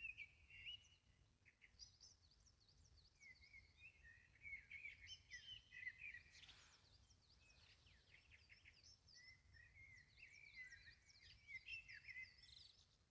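Faint birdsong: several birds chirping and trilling in quick overlapping phrases over a low background hum, with a brief soft hiss about halfway through.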